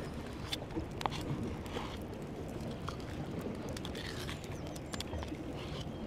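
A spoon mixing soft butter in a wooden bowl: scattered small clicks and soft scrapes over a steady low outdoor rumble.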